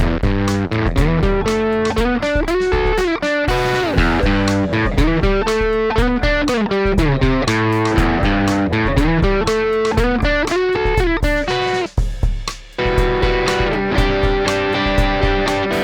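Electric guitar played through an Xotic EP Booster pedal into a Vox MV50 AC amplifier: quick picked single-note runs climbing and falling, a brief break about twelve seconds in, then longer ringing notes.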